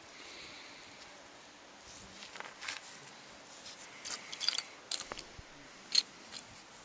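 Metal bottle caps clicking against each other and the wooden tabletop as a gloved hand sorts them: scattered light clicks, a quick cluster a little past the middle and one sharper click about six seconds in.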